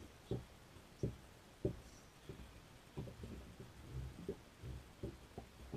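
Small waves slapping against a boat's hull: an irregular series of low, dull thumps, the loudest about a second and a half apart early on.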